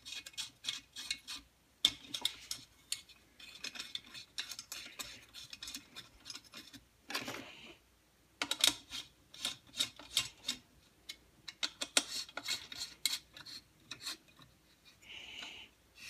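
Long steel hex key spinning the muffler screws into a Husqvarna 181 chainsaw, with quick, irregular metallic clicks and short scrapes as the wrench knocks and turns against the screw heads and muffler.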